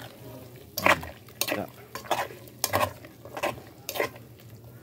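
Hand mixing raw pork pieces in a metal pot of liquid marinade: repeated wet squelching and sloshing strokes, about one every two-thirds of a second.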